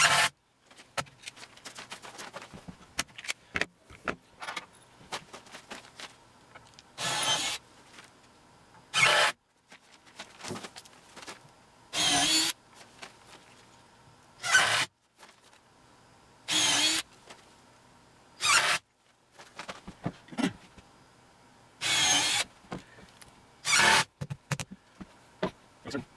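Power drill running in short bursts, pre-drilling and driving 2.5-inch deck screws into 2x4 bracing: about nine runs of under a second each, with small clicks and handling noises between them.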